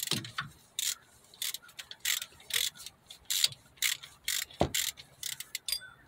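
Socket ratchet wrench clicking in short repeated strokes, about two a second, as the bolt of a belt tensioner is worked.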